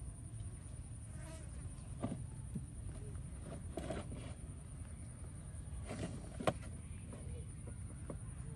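Outdoor insects trilling steadily at a high pitch over a low wind rumble, with a few small clicks and knocks and one sharper click about six and a half seconds in.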